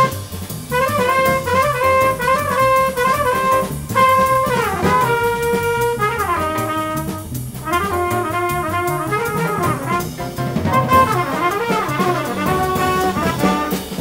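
Trumpet playing a fast hard-bop jazz solo line of quick running notes, with a falling run and a brief breath about halfway through, over a jazz rhythm section with drums keeping time.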